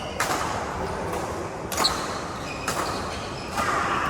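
Badminton rackets striking a shuttlecock in a rally: four sharp hits roughly a second apart, the loudest near the middle.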